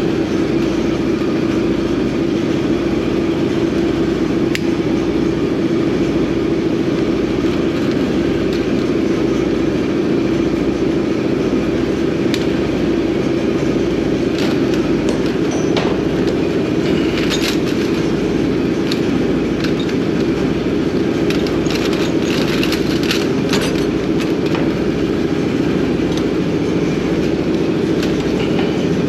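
Steady machinery drone of an engine running, with a constant hum and a pulsing low throb. Scattered light metallic clicks and clinks come partway through.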